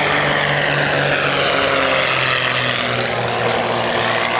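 Propeller-driven aerobatic airplane's engine running hard as it flies past, its steady drone dropping slightly in pitch about three seconds in as it goes by.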